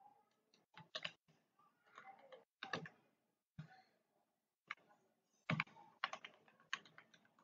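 Faint computer keyboard typing: irregular single keystrokes, then a quicker run of several keys about two-thirds of the way through.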